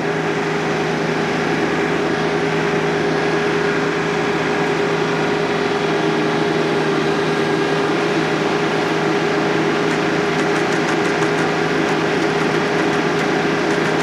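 TYM T25 compact tractor's diesel engine running steadily at a constant speed, with an even, unchanging tone.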